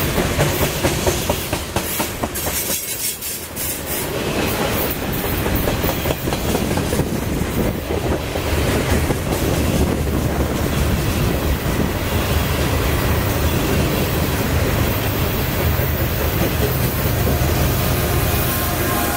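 Freight train of covered hopper cars rolling past close by: a steady rush of steel wheels on rail with fast clicking over the rail joints. From about two-thirds of the way in, a deeper engine rumble builds as a diesel locomotive at the rear of the train passes.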